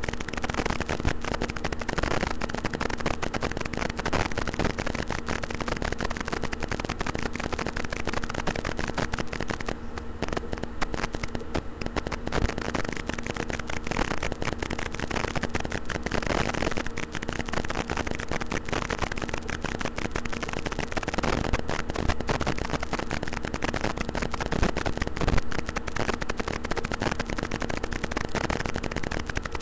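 Constant dense crackling static with a steady low hum from a webcam's microphone.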